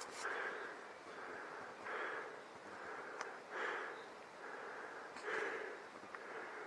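A person's heavy breathing close to the microphone, one noisy breath roughly every second and a half to two seconds, four in all.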